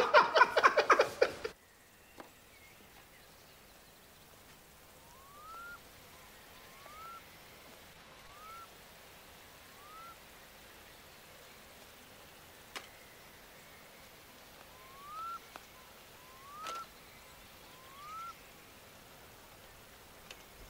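A man's laughter cuts off about a second and a half in, giving way to a quiet outdoor background. In it a bird whistles a short rising note four times, about a second and a half apart, then three more times after a pause.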